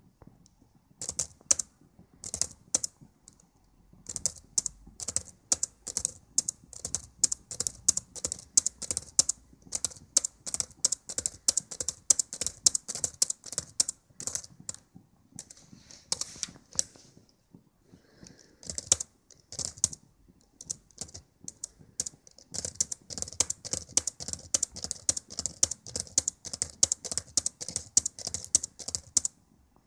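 Typing on a Dell Latitude E7440 laptop's keyboard: rapid runs of key clicks broken by several short pauses.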